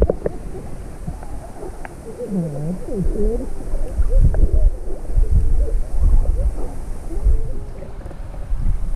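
Muffled, indistinct voices rising and falling in pitch, with a heavy low rumble of wind buffeting the microphone that grows louder about three seconds in.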